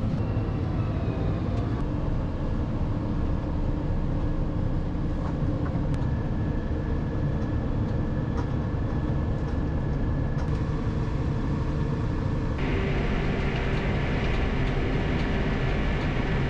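Tractor engine running steadily while driving, a constant low rumble; about thirteen seconds in a brighter hiss joins it.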